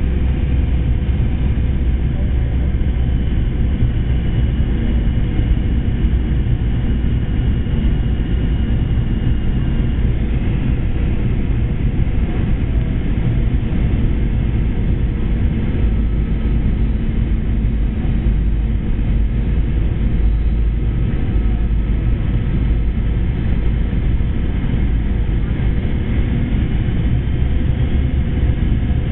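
Steady cabin noise inside a Boeing 717-200 in flight on approach: a low rumble of airflow and the rear-mounted Rolls-Royce BR715 turbofans, with a faint steady whine above it.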